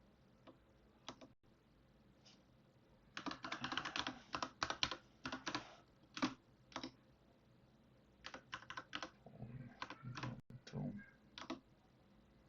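Computer keyboard typing: a few single keystrokes, then quick runs of keys in two bursts separated by a short pause.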